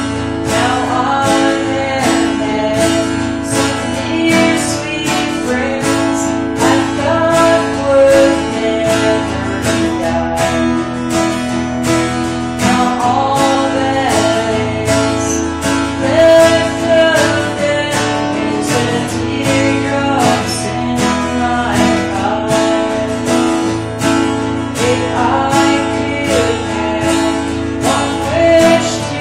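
A song performed on strummed acoustic guitar with a steady rhythm and a voice singing over it.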